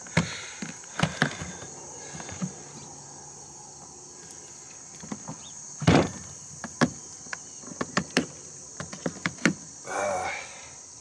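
Hard plastic cooler latches clicking open and the lid knocking, with one louder thump about six seconds in and a run of small clicks after it. Crickets trill steadily underneath.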